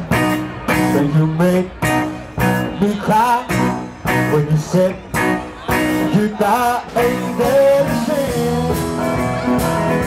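Live rock and roll band playing a song, with guitar, upright bass, drums and keyboard.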